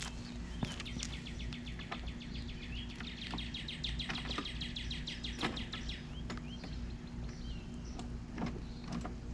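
A bird's rapid trill, about five seconds long, with a few short chirps, over a steady low hum. Scattered sharp clicks and knocks, typical of metal brackets being handled, come and go throughout.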